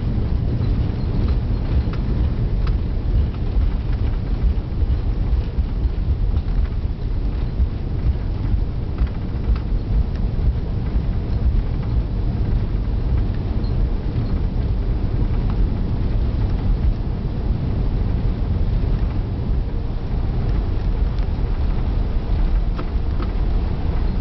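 Cabin noise inside an Airbus A340-500 rolling along the runway after landing: a steady low rumble from the wheels and engines, with faint rattles.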